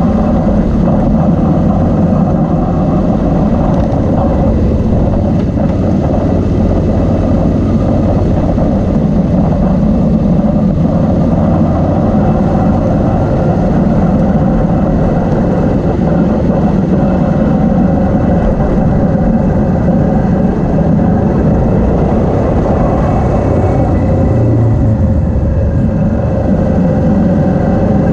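Motorcycle engine running steadily at an even cruising speed, heard close up from the bike itself as it rides along a dirt track, with no revving or gear changes.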